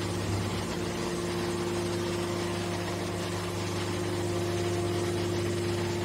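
Hydraulic power unit of a horizontal scrap metal baler running with a steady, even hum of constant pitch while the hydraulic cylinder swings the baler's top lid.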